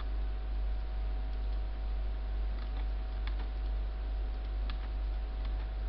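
Steady low electrical hum on the recording, with a few faint, sharp clicks scattered through it as the computer is worked.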